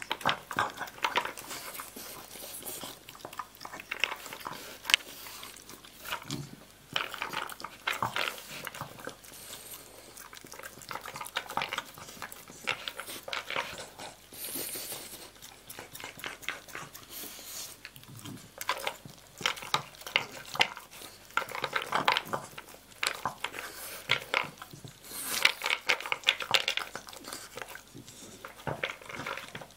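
A dog eating dry kibble from a plastic slow-feeder bowl: irregular clicks and rattles of kibble knocking against the bowl as the dog noses pieces out from between its bumps, mixed with chewing.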